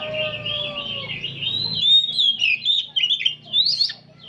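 Oriental magpie-robins singing together in a dense chorus: rapid, varied whistled phrases with quick up-and-down slurs, growing busier and louder about halfway through.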